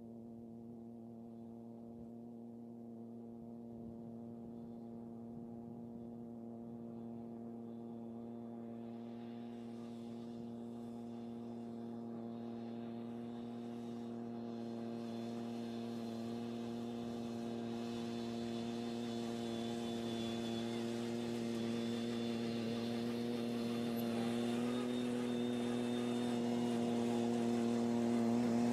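A steady machine drone of one fixed pitch that starts suddenly and grows slowly louder.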